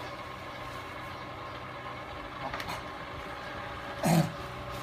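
A steady low mechanical hum, with a faint short noise about two and a half seconds in and a brief louder one about four seconds in.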